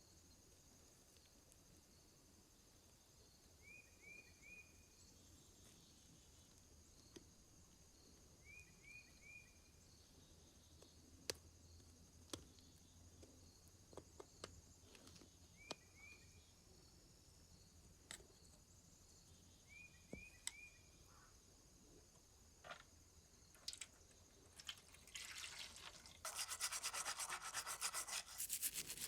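Mostly near silence with scattered light clicks of the lamp being handled. Near the end, rapid brushing strokes begin as the lamp is scrubbed.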